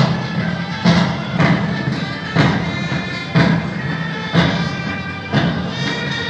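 Military band playing a march, with a heavy bass-drum beat about once a second under sustained instrumental tones.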